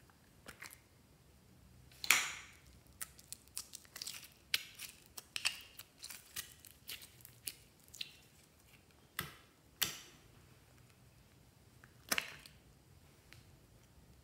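Sticky slime being pulled and squeezed by hand, giving a run of short sharp pops and crackles, densest in the first half, loudest about two seconds in.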